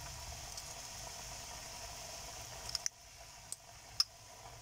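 Badusha dough balls deep-frying in hot oil: a steady sizzling hiss that turns quieter about three seconds in. A few sharp clicks come in the last second and a half.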